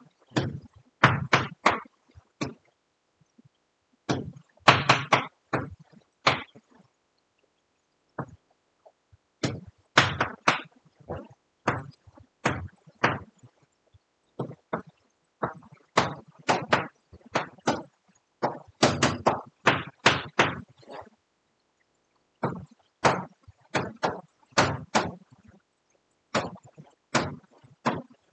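Chalk knocking against a blackboard as digits are written: quick clusters of sharp taps with short pauses between them.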